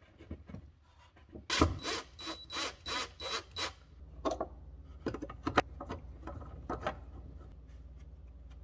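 Steel fish tape scraping and clicking against the edge of a drywall cutout as it is pulled through, a quick run of rasping strokes starting about a second and a half in and lasting about two seconds. After that come a few separate handling clicks over a low steady hum.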